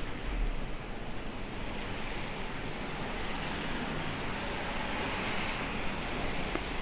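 Steady hiss of a rainy city street: car tyres swishing on wet pavement with falling rain, growing a little louder in the second half.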